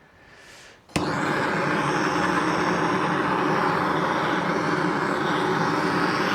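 A steady, loud machine noise, like a motor running, starts abruptly about a second in and holds an even pitch.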